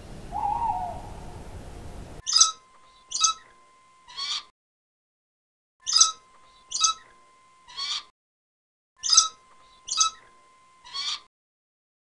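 A brief owl hoot about half a second in, over a hissy background. Then, from about two seconds in, a small songbird chirping in sets of three sharp high notes, one set roughly every three seconds.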